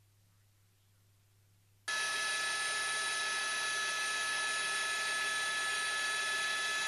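Near silence for about two seconds, then a sudden, loud, steady noise with several high steady whining tones cuts in: helicopter cabin noise with turbine whine.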